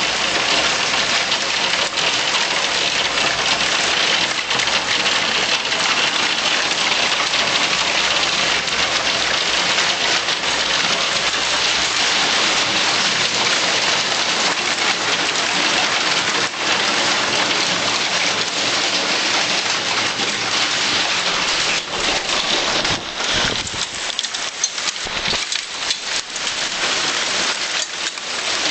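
Hail pelting down on surfaces: a dense, steady clatter of countless small hailstone impacts. Near the end it thins into more separate ticks.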